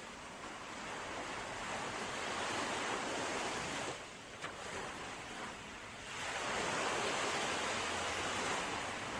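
Sea waves washing ashore in a steady hiss that swells and ebbs, easing off about four seconds in before a louder wave surges in around six seconds.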